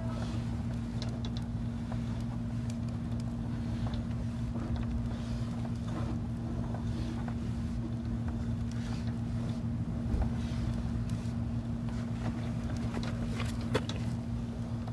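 Steady low machine hum with a constant tone, with faint scattered clicks and ticks over it.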